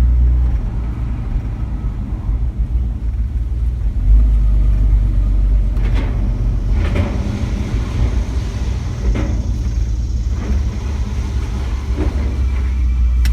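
Truck engine running with a steady low rumble, with a few short knocks in the second half.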